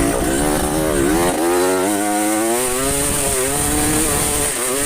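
Trail motorcycle engine running and being revved; its pitch climbs steadily from about a second in, then dips and picks up again near the end.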